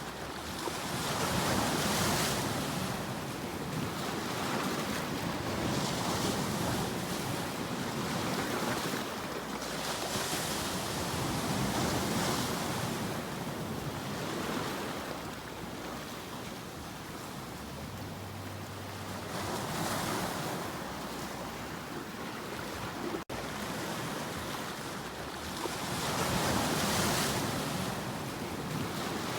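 Sea waves breaking and washing on a shore: a steady surf hiss that swells and ebbs every few seconds. About two thirds of the way through there is a split-second dropout.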